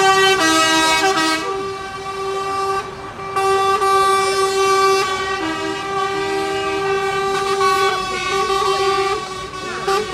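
Truck air horns sounding in long held blasts, one steady horn joined now and then by a second, lower one, with a short break about three seconds in.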